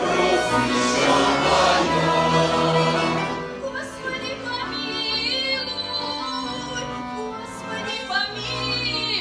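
Music with singing: a choir over sustained accompaniment, fuller for about the first three seconds, then softer, with a single voice singing with vibrato.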